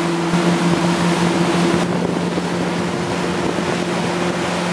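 Sea Swirl 2101's sterndrive engine running steadily at cruise on plane, around 2,800 to 3,000 RPM, as a steady drone under the rush of wind and water.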